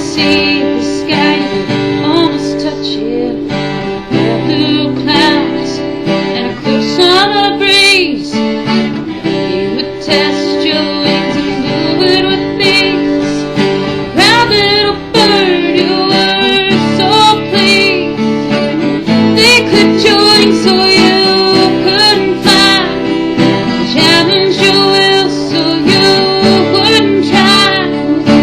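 A song's instrumental passage: acoustic guitar strumming chords, with a wavering melody line above it.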